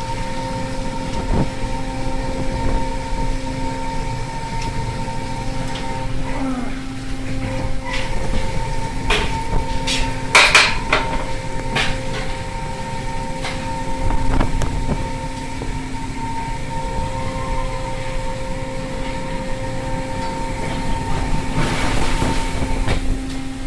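Fishing boat machinery running with a steady drone, broken by scattered sharp metallic knocks, the loudest about ten seconds in.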